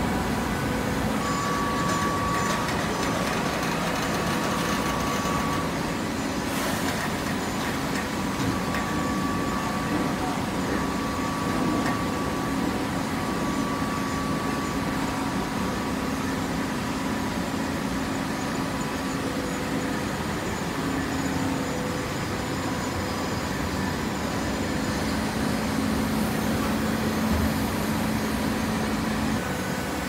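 Horizontal hydraulic baling press running: a steady machine hum from its hydraulic power unit, with a faint whine that comes and goes.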